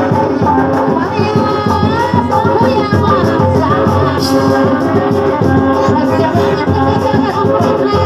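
Traditional Sundanese kuda lumping music: steady drumming and rattling percussion under a singing voice with a gliding melody.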